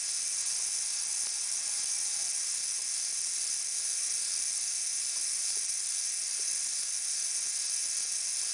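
Siku Control 32 tractor drive motor, a small geared DC motor, running steadily at 3 volts: an even whir with a faint thin gearbox whine, its output shaft geared down to about 72 rpm.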